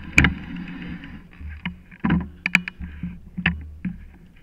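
Sharp knocks and clatters of a mountain bike being handled, the loudest just after the start and a quick cluster about two seconds in, over a low steady rumble.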